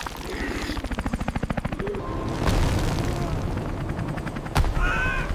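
Cartoon helicopter rotor sound effect: rapid, evenly spaced chopping beats for about a second and a half. After it come a sharp crack about two and a half seconds in and a heavy thump near the end.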